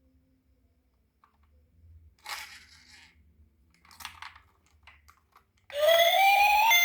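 Packaging being crinkled and torn twice, then near the end a battery-powered toy vehicle's electronic sound switches on suddenly and loudly: a rising siren-like tone.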